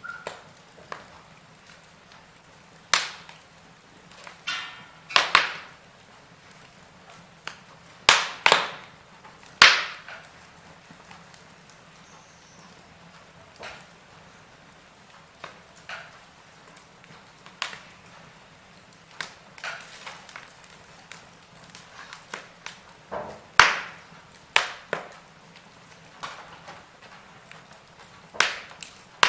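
Wood fire burning in a fireplace: irregular sharp crackles and pops over a low hiss, with the loudest pops clustered about three, five, eight to ten and twenty-four seconds in.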